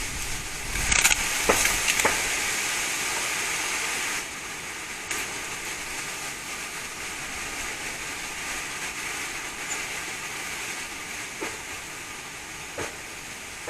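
Wind blowing in a steady hiss, with a few sharp clicks or knocks in the first couple of seconds and two fainter ones near the end.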